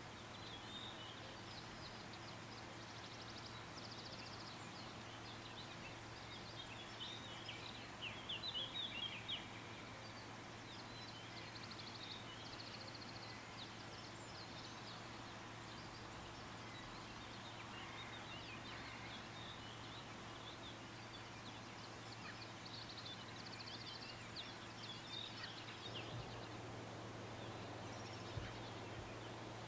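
Small songbirds chirping and singing in short phrases and quick trills, heard faintly over a steady low hum.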